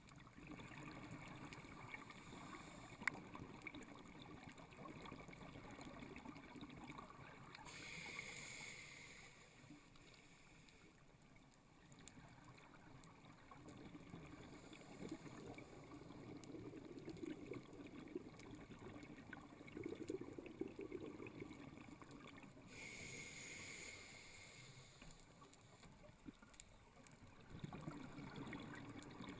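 Faint sound of a scuba diver breathing underwater through a regulator. There are two hissing inhales about fifteen seconds apart, and the stretches between them are filled with a longer rush of exhaled bubbles.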